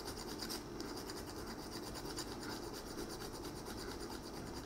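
Needle file worked by hand against a small soldered brass jigging lure, filing lumps of solder off the joint: a faint, steady scratching.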